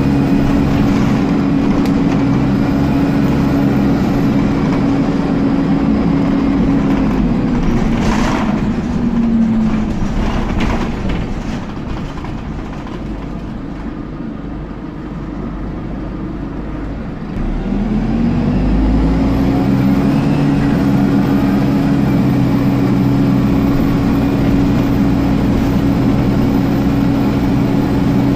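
A Dennis Dart SLF bus's engine cooling fan whines steadily over the engine and road noise, heard from inside the bus. About ten seconds in, the whine slides down in pitch and dies away as the fan slows and stops. About eighteen seconds in, it comes back, rising in pitch as the fan spins up again.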